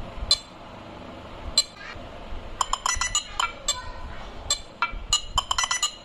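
Short, bright, clinking electronic tones from the Nothing Phone 1's Glyph Composer app, one for each tap on a glyph pad, in the Modem sound preset. They come irregularly: a few single notes and two quick runs of several, one near the middle and one near the end.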